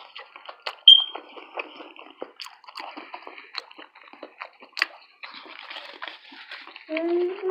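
Close-miked wet chewing and mouth sounds from eating tacos: irregular smacks and clicks, one sharp click about a second in. Near the end a voice holds a hummed note.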